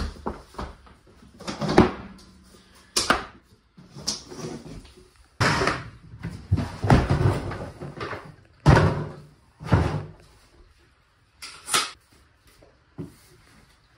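A string of separate knocks and clatters, about one every second or two, from handling loose vinyl plank flooring and rummaging through hard plastic tool cases, lids and contents knocking against each other.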